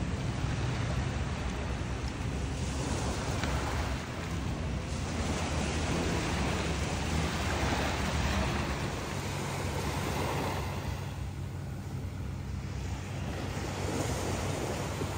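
Small waves washing onto a sandy beach, with wind on the microphone and a steady low rumble underneath.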